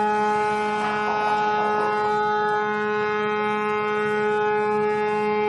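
A ship's horn sounding one long, steady blast: a single deep note with many overtones.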